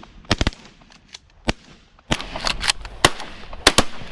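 Several shotgun shots fired by a group of duck hunters at incoming mallards, sharp blasts at irregular intervals, some overlapping in quick pairs.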